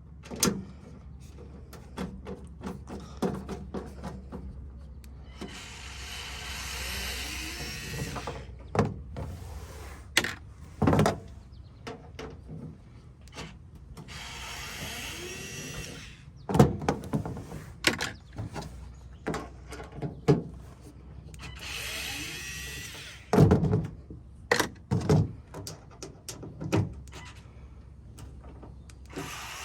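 Cordless power screwdriver backing screws out of a Toyota Tundra's tailgate trim panel, running in several whirring spells of a few seconds each. Sharp clicks and knocks of screws and tool against the tailgate come in between.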